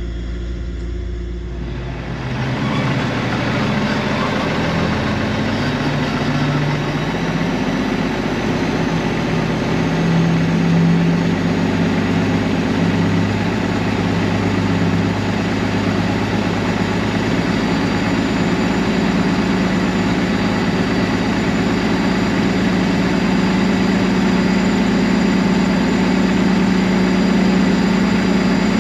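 Heavy diesel engine running steadily. It gets louder about two seconds in, and its pitch shifts up and down gradually.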